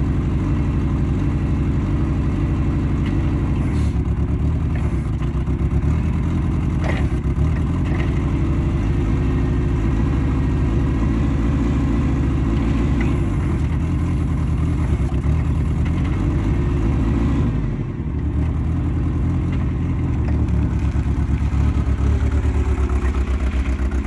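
Propane-fuelled Caterpillar 30 forklift engine running steadily as the forklift is driven, with a brief dip in engine sound about three-quarters of the way through.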